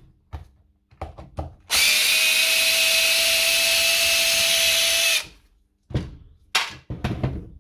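Electric screwdriver or drill motor running at a steady speed for about three and a half seconds, backing out the last housing screw of the tool, with short handling knocks and clicks before and after.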